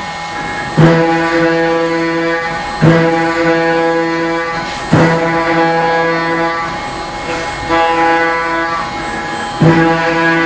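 Instrumental background music: held chords, with a new chord struck about every two seconds.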